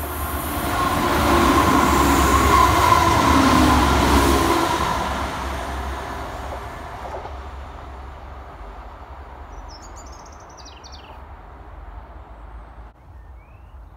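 A diesel multiple unit passes close by, loudest from about one to five seconds in, with a faint steady whine from the wheels. It then fades away steadily as it runs off down the line.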